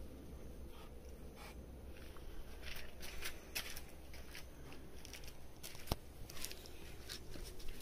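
A cat crunching food: faint, irregular crisp clicks, thicker in the second half, over a low steady hum.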